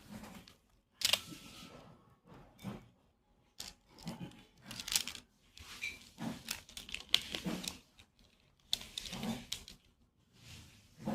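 Plastic toy gun being handled: irregular clicks, knocks and rattles, about one every second.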